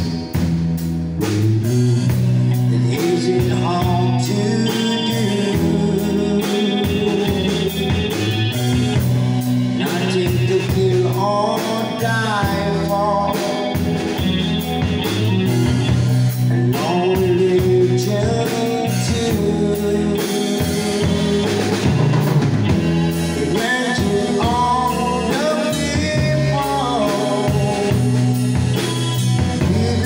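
A live amplified band playing a blues-rock song: electric guitar, electric bass and drum kit, with a man singing into a microphone.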